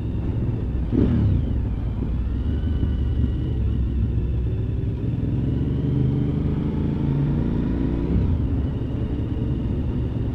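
Motorcycle engine running on the move, heard from the bike itself over a steady rumble of wind and road noise; its pitch drops sharply about a second in, then climbs slowly through the middle as it pulls.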